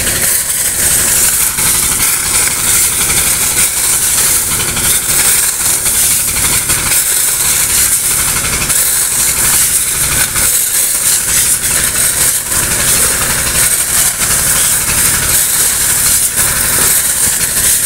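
An engine running steadily under a loud hiss and clatter of water and river gravel pouring from a pipe into a truck bed, with shovels scraping through the gravel.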